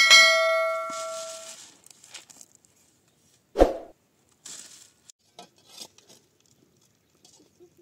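A sharp clang that rings on for about a second and a half as it dies away, then a single dull thump about three and a half seconds in, followed by a few faint knocks.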